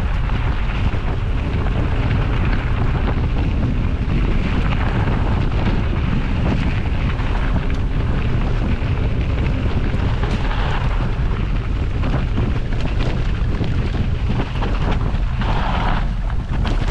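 Steady wind rumble on a camera microphone carried by a moving mountain bike, with the tyres rolling over a dirt and gravel track.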